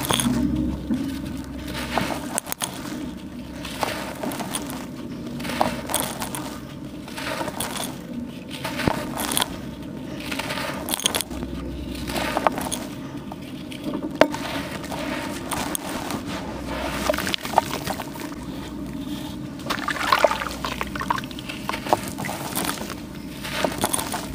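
Wet charcoal slabs crumbled and squeezed by hand in a basin of water: gritty crumbling and crunching mixed with water sloshing and splashing, in irregular surges as the fingers work the pieces.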